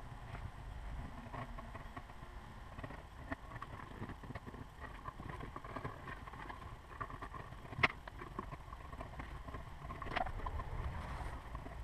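Faint scraping and light ticks of hand tools working the edge of a leather welt, an edge beveler shaving the edge, over a low steady rumble, with a sharper click about eight seconds in.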